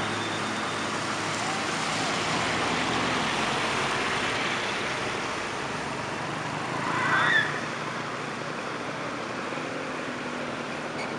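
Steady traffic noise of cars and motorbikes passing on a wet road, with tyre hiss. About seven seconds in, a short high-pitched sound that bends in pitch stands out briefly above it.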